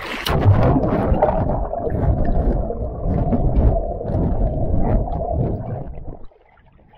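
A swimmer plunges into the lake, then muffled, churning water noise heard underwater, dull and thick with little high sound, cuts off abruptly about six seconds in as the camera breaks the surface.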